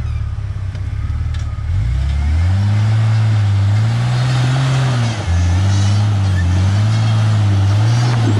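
Rock crawler's engine running steady, then from about two seconds in revving up and down in repeated smooth surges as the throttle is worked to climb over boulders.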